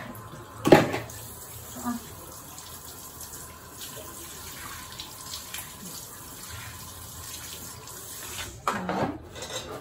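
A sharp knock just under a second in, then a handheld shower head running steadily, spraying water onto a small dog's coat.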